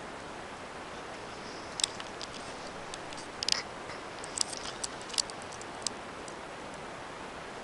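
Steady hiss with a scatter of short, sharp, irregular clicks and ticks, starting about two seconds in.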